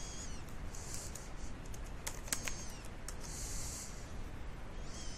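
Faint computer keyboard typing: a few sharp key clicks about two seconds in, over a steady hiss. Short high falling chirps come near the start and again near the end.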